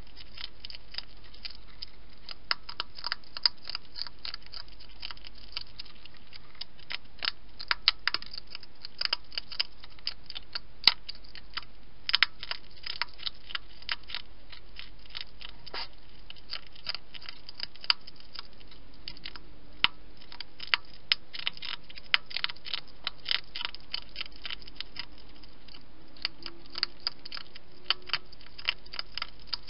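European hedgehog eating at a feeding dish, its chewing a rapid, irregular run of sharp little clicks broken by short pauses.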